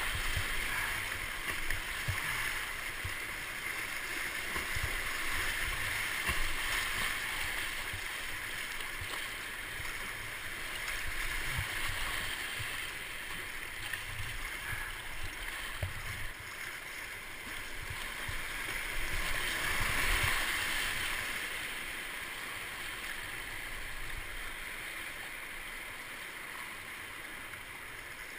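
Rushing whitewater of a river rapid heard from a kayak on the water, a steady hiss that swells louder about two-thirds of the way through. Scattered low thumps of water and paddle strokes hitting the boat.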